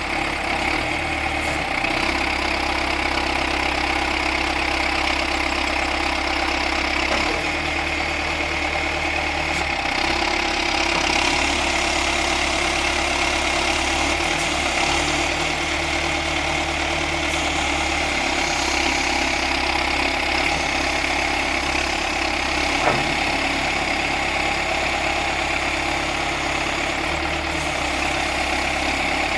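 John Deere 510C loader backhoe's turbocharged diesel engine running steadily, near idle.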